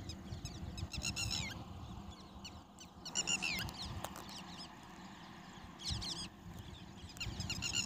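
A small bird calling three times, each call a quick run of high, falling chirps lasting about half a second, over a faint low rumble.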